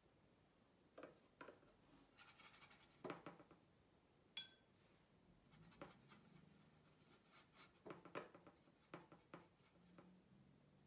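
Faint watercolour painting sounds: a brush scratching and rubbing on paper between a few light taps, with one sharp clink that rings briefly about four seconds in.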